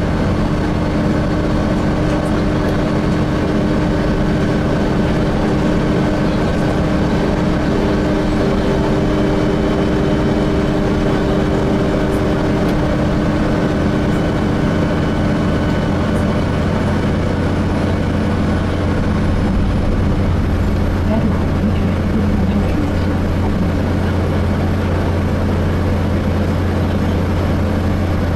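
Inside a Voith-transmission Gillig Phantom transit bus under way: steady engine and drivetrain hum with road noise, holding even, with no shifts or stops.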